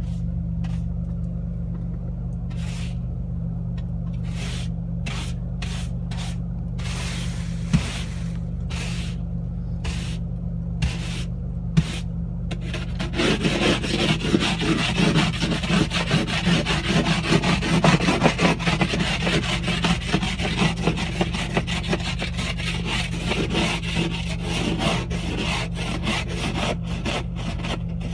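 Rubbing and scraping over a steady low hum: scattered short scrapes at first, then continuous, rapid rasping scrapes from about halfway through.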